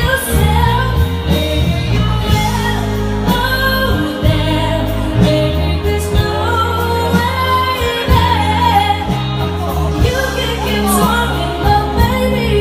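Live band music with a singer's voice over a steady accompaniment of bass, keyboard and drums, played loud in a large room.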